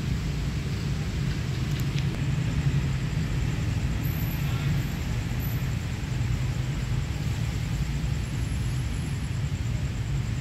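A steady low rumble of background noise, with a faint click about two seconds in.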